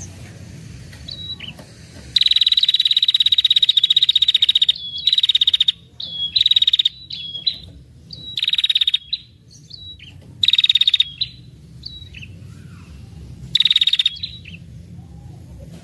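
Female red-headed prenjak giving its long rapid 'ngetir' trill, the agitated rattle used as a lure call: one long high trill of about two and a half seconds, then shorter bursts of trill with single chip notes between them.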